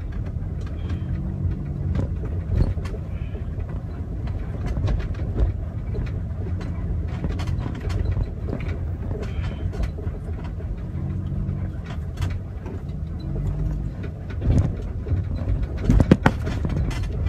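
Car being driven, heard from inside the cabin: a steady low rumble of engine and road noise, with the engine note rising and falling a few times. Several sharp knocks come near the end.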